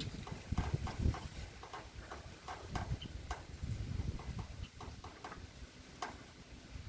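Wind buffeting the microphone in uneven gusts, with scattered light irregular clicks and taps.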